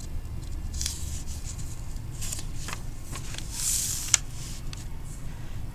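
Soft, irregular rustling and rubbing noises over a low hum, with one sharp click about four seconds in.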